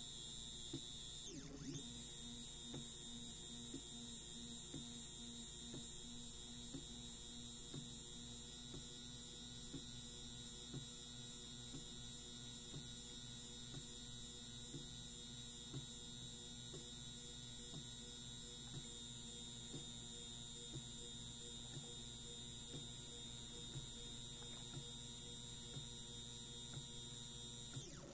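Stepper motor driving a 3D-printed PLA nut along its screw, moving a carriage loaded with 2 kg on PLA bushings over steel rods during an endurance stress test. It makes a steady hum with faint regular ticks, and the sound dips briefly about a second and a half in and again at the end.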